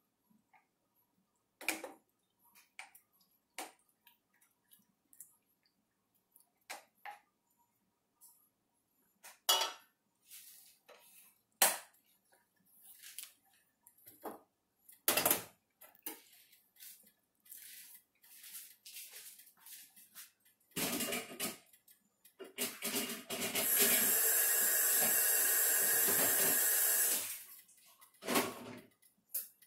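Scattered taps, clinks and knocks of a wooden spoon and utensils against a stainless steel saucepan of cooking soup. Near the end, a loud, steady rushing noise lasts about four seconds and then cuts off abruptly.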